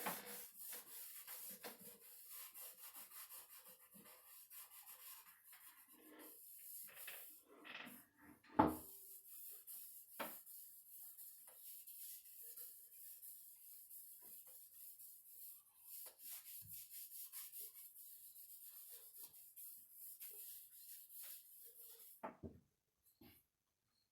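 Repeated hand rubbing strokes on the cedar chest's wood, worked back and forth, with one sharp knock about eight and a half seconds in. The rubbing stops near the end.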